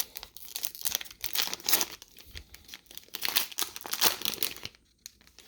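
Plastic cellophane wrapper of a trading-card cello pack crinkling and tearing as it is handled and opened, in irregular rustles with a brief pause near the end.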